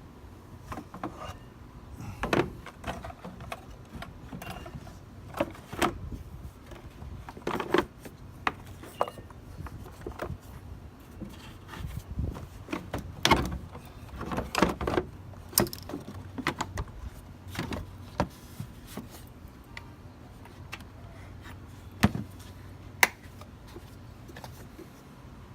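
Irregular clicks, knocks and light rattles of hands working on a car's air filter housing, handling the filter and refitting its parts.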